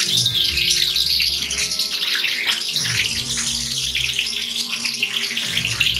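Food sizzling and crackling in a cast iron skillet on the stove, a steady frying hiss.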